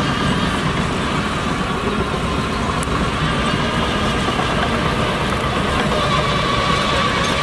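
Heavy diesel earthmoving machinery running steadily under a constant engine note.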